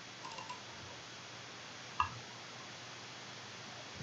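A few faint clicks of a computer mouse over quiet room hiss, with one sharper click about halfway through.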